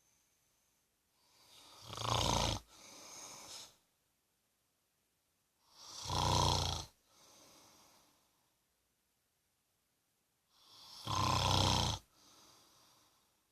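A man snoring: three loud snores about four and a half seconds apart, each followed by a softer breath sound.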